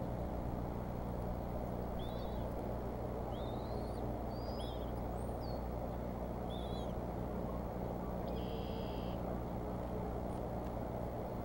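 Steady outdoor background rumble and hiss, with about six faint, short chirping bird calls spread over the first two-thirds and one brief buzzy call near the end.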